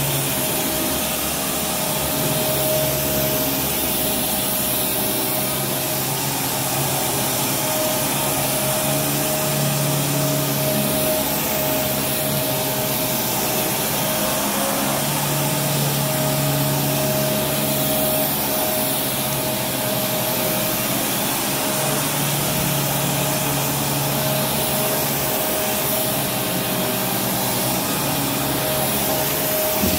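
Kenmore Progressive direct-drive upright vacuum cleaner running steadily while pushed over carpet: a continuous rush of air with a steady whine.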